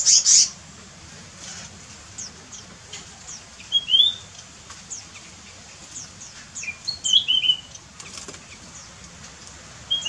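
Aviary birds calling: a steady scatter of thin, high, quick descending chirps, with louder twittering calls about four seconds in and again around seven seconds. A short loud rustling burst at the very start.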